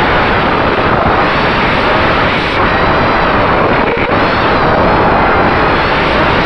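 FPV quadcopter's T-Motor F60 brushless motors and tri-blade props whining, the pitch wavering up and down with throttle, heard through heavy wind noise on the onboard camera's microphone.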